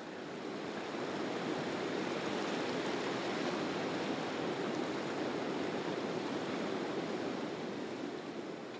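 River water rushing over rapids: a steady rushing noise that fades in over the first second and tapers off near the end.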